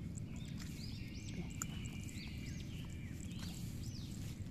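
Small creatures calling in a wet field: short rise-and-fall chirps about once a second over a steady high hum. Underneath is low rustling from a hand digging in wet mud.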